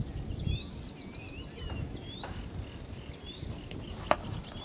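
Insects chirping steadily, with a short rising chirp that repeats at an even pace. About four seconds in, a single sharp crack of a cricket bat hitting the ball.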